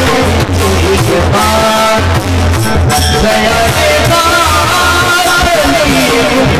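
Warkari bhajan: a group singing a devotional abhang in chorus, with small brass hand cymbals (taal) and a drum beating a steady rhythm.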